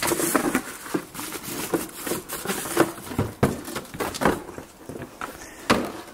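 Paper instruction sheets and a cardboard box being handled and opened, rustling with irregular small knocks and clicks, and a sharper knock near the end.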